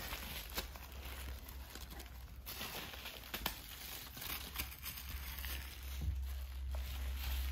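Thin white paper crinkling and rustling unevenly as a toddler grabs and pulls at it, with a few short clicks.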